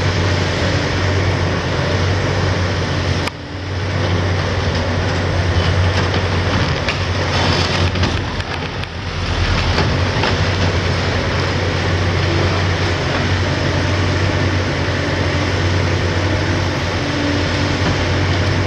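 Hitachi 870 LCR demolition excavator at work: its six-cylinder Isuzu diesel runs steadily under hydraulic load while the demolition attachment crushes concrete, with continuous crackling and crunching of breaking slab and falling debris.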